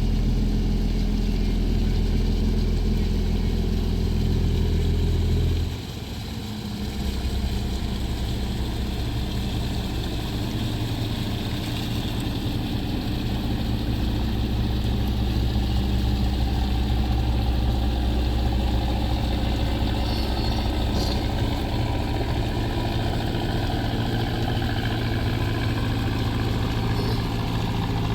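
Fishing boat engine running steadily. About six seconds in its pitch drops briefly as the throttle changes, then it settles back into a steady run.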